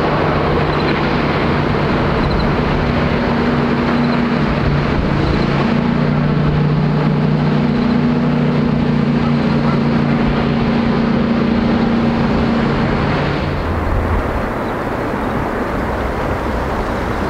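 A jet boat's engine drones steadily over the rush of fast river water. About thirteen seconds in, both stop abruptly, leaving a softer steady rush.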